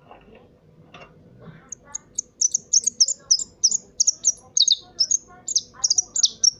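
A caged finch kept as a caller bird singing a fast, loud series of sharp high chirps, about five a second, beginning about two seconds in; several notes sweep downward.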